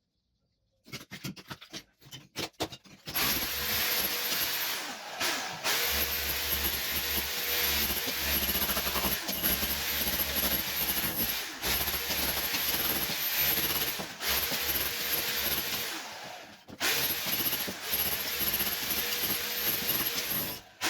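Electric demolition hammer chipping old ceramic wall tiles off a kitchen wall. A few short knocks, then the tool runs in two long stretches with a brief stop around two-thirds of the way in.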